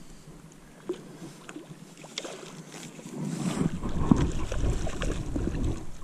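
Water splashing at the shore as a hooked trout is played to the landing net, getting louder about three seconds in, with a few small clicks of line handling before it.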